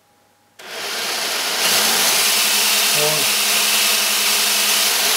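Four LEGO Technic buggy motors driving the RC boat's two propeller shafts through 3:1 step-up gearing, spinning the propellers in free air. The motors start about half a second in and build over about a second to a steady, loud whirr, with the shafts meant to turn at over 3000 rpm.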